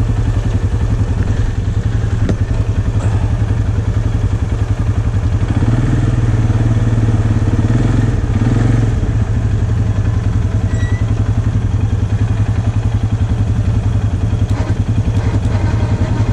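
Textron Alterra 500 ATV engine idling steadily while stuck in a mud hole, with a smoother, slightly louder run for a few seconds in the middle.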